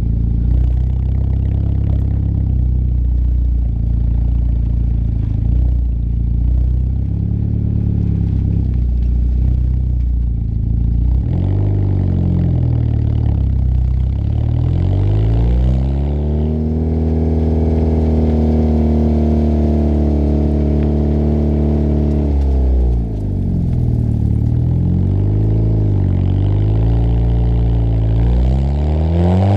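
Peugeot 206's exhaust, heard close to the tailpipe while driving. The note runs steady at first, then the revs climb and drop back several times through gear changes, hold at a steady higher pitch, fall away suddenly, and rise again near the end.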